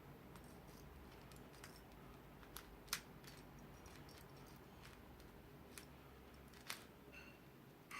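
Faint plastic clicking from a tiny 3 cm Maru 3x3 puzzle cube, a tight basic Rubik's-design mini cube, as its layers are turned by hand during a solve, with two sharper clicks about three and about seven seconds in.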